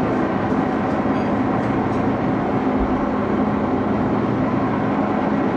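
Axelson lathe running under power, its spindle drive and gearing giving a steady mechanical hum with several steady tones.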